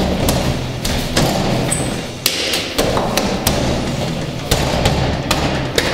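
Fist pounding hard on a wooden apartment door, a long run of uneven knocks at roughly two a second: impatient banging by the nervous delivery man.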